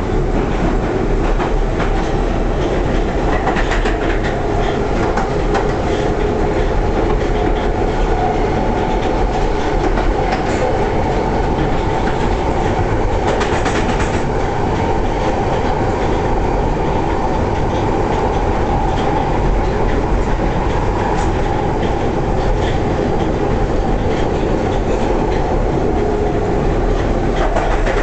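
London Underground Piccadilly line tube train running at speed through a deep-level tunnel, heard from inside the carriage: a steady, loud rumble and roar of wheels on rail, with a faint held whine and scattered clicks.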